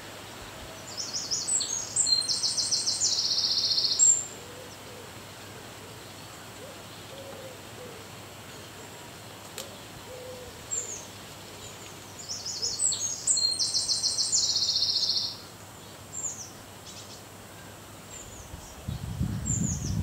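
A small songbird sings two bursts of song about ten seconds apart. Each is about three seconds of fast, high repeated notes stepping down in pitch, with a few short high calls between them. Faint low cooing notes sit underneath, and a low rumble starts near the end.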